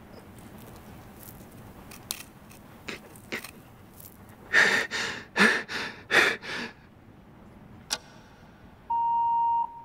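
A man breathing hard in four loud, gasping breaths. Then comes a click and a single electronic beep lasting under a second, from a countdown timer on its last second.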